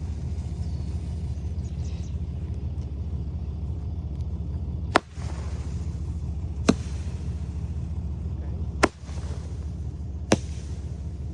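Strobing 5-ball Roman candle firing its shots: four sharp pops, about one and a half to two seconds apart, each followed by a brief hiss, over a steady low rumble.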